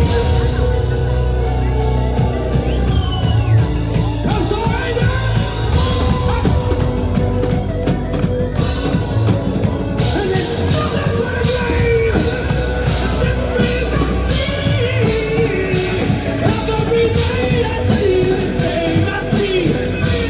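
Live rock band playing loud, with steady drum hits and a singer's vocals over guitars.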